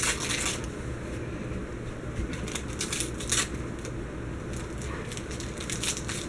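Wrapping paper rustling and tearing in short, irregular bursts as a present is unwrapped.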